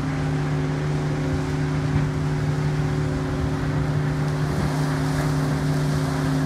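Steady drone of running sugar-mill machinery: a constant low hum with a few held tones over a wash of noise, unchanging throughout.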